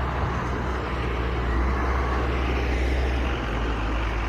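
Tow vehicle's engine running steadily under load with road and tyre noise while driving off with a loaded equipment trailer; the engine note shifts slightly a little past three seconds in.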